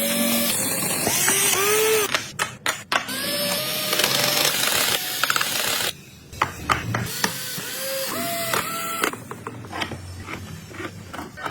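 A power tool running in two long bursts, the first about six seconds and the second about two and a half, with its pitch rising and falling as it works.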